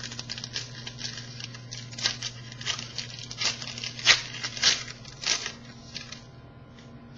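Trading cards and foil pack wrappers being handled: a run of crinkles and rustles with scattered sharper snaps, dying away about six seconds in, over a steady low hum.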